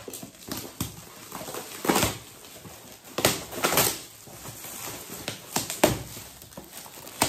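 Metallic foil gift wrapping paper being crinkled and torn off boxes, an irregular rustling broken by several sharper rips.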